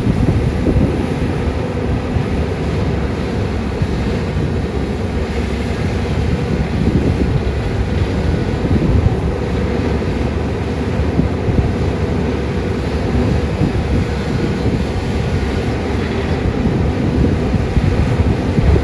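Caterpillar 320D hydraulic excavator's diesel engine running steadily at working revs.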